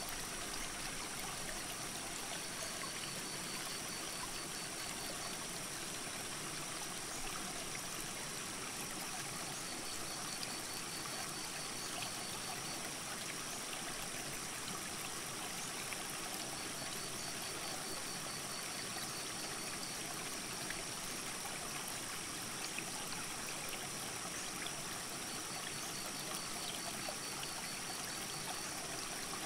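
Mountain creek rushing over rocks, a steady, unbroken wash of water. A faint high trill lasting two to three seconds recurs about every seven seconds.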